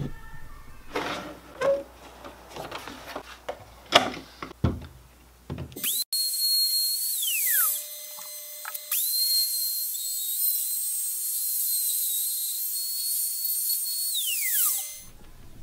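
A few knocks and clicks of handling, then a DeWalt router switched on about six seconds in: a high whine rises quickly, runs briefly and winds down. It starts again about nine seconds in, runs steadily for about five seconds, then spins down near the end.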